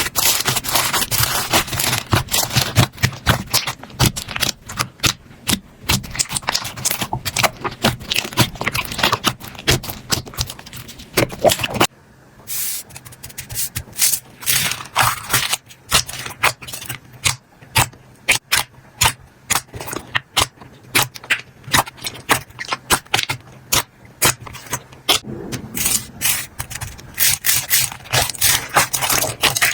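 Hands squeezing, poking and stretching slime: a dense run of irregular wet clicks, pops and crackles. It breaks off briefly about twelve seconds in, then carries on.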